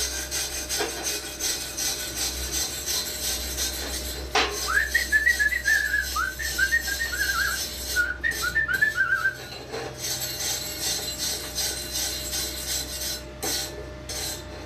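Hand steel wire brush scrubbing back and forth over a flux-core weld on steel exhaust pipe, a steady rasping scratch that cleans the slag off the weld. From about four seconds in, for about five seconds, a short tune of quick whistled notes plays over the brushing.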